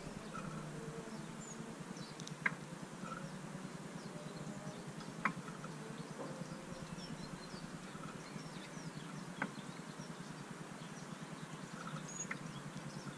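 Garden ambience with faint high bird chirps and a steady low hum, broken by four sharp taps a few seconds apart on the metal mesh feeder as the goldfinch feeds at it.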